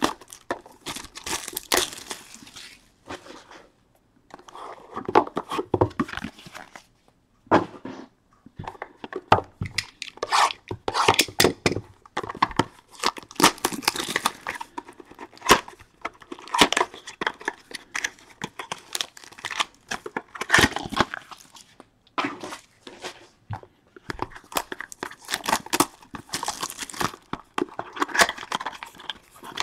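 Plastic wrap and cardboard packaging on a sealed trading-card box being torn and crinkled as the box is unwrapped and opened. The rustling comes in irregular bursts, with brief pauses about four and eight seconds in.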